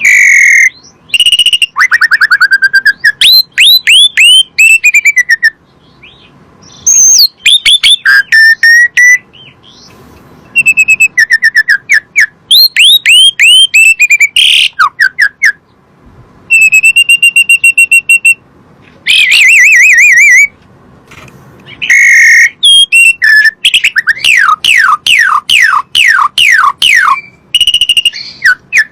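Asian pied starling (jalak suren) singing loud whistled phrases, with fast runs of falling notes, rapid trills and a long steady whistle about two-thirds of the way through, broken by short pauses.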